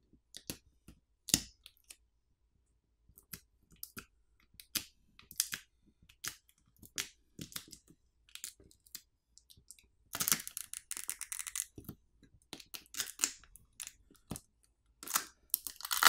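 A smartphone battery's adhesive pull pouch being peeled and worked loose by hand: scattered small clicks and crinkles of plastic film. Denser crackling of tearing adhesive comes about ten seconds in and again just before the end.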